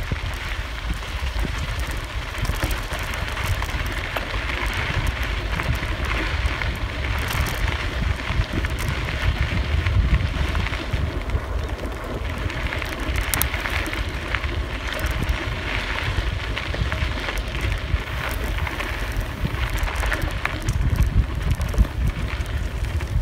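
Wind buffeting the microphone while a bicycle rolls along a dirt and gravel trail: a steady low rumble with the hiss and small crunches and ticks of the tyres on the loose surface.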